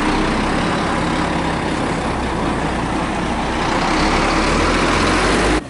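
A motor vehicle's engine and road noise, a steady low rumble under a loud rushing noise. It grows a little louder about four seconds in and cuts off suddenly near the end.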